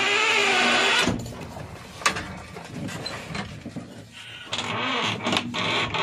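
JCB 3DX backhoe loader's diesel engine running, with louder surges near the start and near the end and a sharp click about two seconds in.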